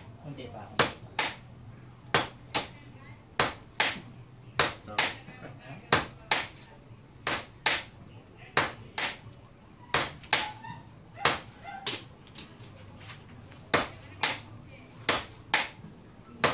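A hand hammer and a sledgehammer taking turns striking a red-hot blade of leaf-spring steel on an anvil. The sharp, ringing blows come in pairs, a pair a little more than once a second, in a steady rhythm.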